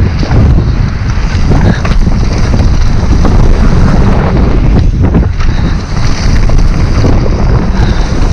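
Heavy wind buffeting on an action camera's microphone as a mountain bike rolls fast down a stony dirt trail, with tyre noise and frequent small knocks and rattles from the bike over loose stones.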